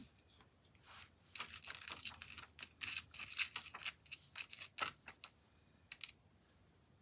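Small craft supplies being handled: a quick run of light clicks, taps and rustles from about a second in until about five seconds in, then quiet handling.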